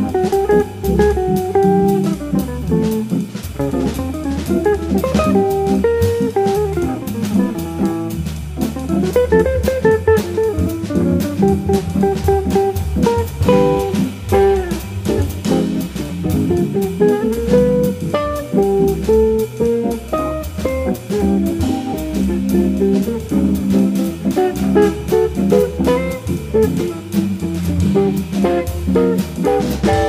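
Jazz recording: an electric jazz guitar solos over drum kit and bass, first in flowing single-note lines, then partway through switching to chords.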